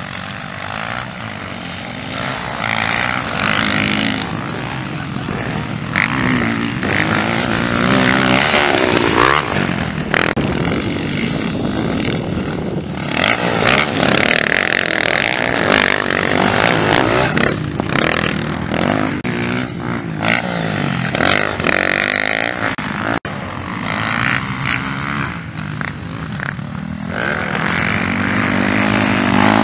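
Motocross dirt bikes racing, several engines revving up and down again and again as riders pass, shift and accelerate out of the corners, the sound swelling and fading as bikes come by.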